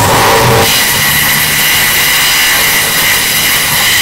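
Blown-out, distorted audio: music breaks off under a second in, giving way to a loud, steady, high-pitched mechanical whine of construction noise.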